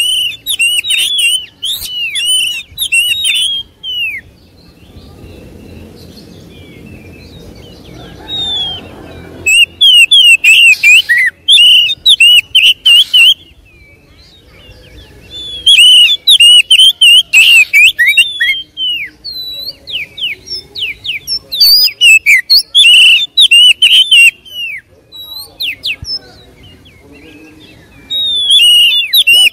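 Oriental magpie-robin singing full, vigorous song: loud bursts of rapid, varied whistled and chattering phrases, each a few seconds long, with short quieter pauses between them.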